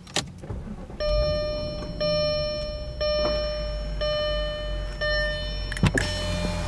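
2004 Audi A8 L's dashboard warning chime: a single ringing tone repeated five times, about once a second, sounding along with the cluster warning to apply the foot brake while selecting a gear. The engine idles underneath, and a sharp click comes just before the end.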